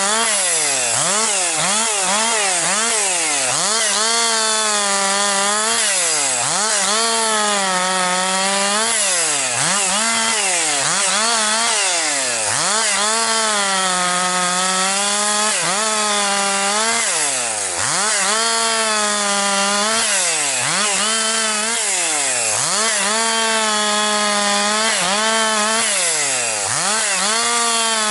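Husqvarna 262XP two-stroke chainsaw, freshly rebuilt and broken in, bucking firewood near full throttle. Its revs drop and climb back every second or two as it loads in the cut and is eased off between cuts.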